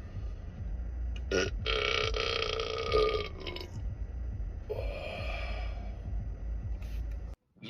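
A man burping twice: a long, drawn-out burp starting about a second and a half in and lasting about two seconds, then a shorter one about five seconds in.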